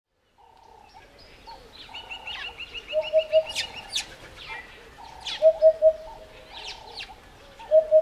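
Eurasian hoopoe singing its mellow, flat 'hoo-poo-poo' song: two groups of three soft low notes a couple of seconds apart, with a third group just beginning at the end. Higher chirps and a fast, even trill from other birds sound around it.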